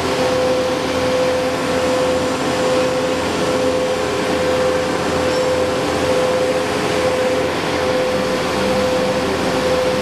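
Heavy-duty double side planer running steadily with no wood in it: a constant machine hum with one steady tone over broad noise.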